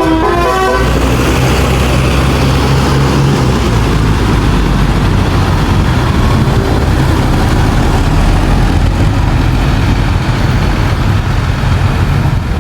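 The last notes of a bus's basuri musical horn break off within the first second. Then comes the bus engine's steady low rumble with road and wind noise.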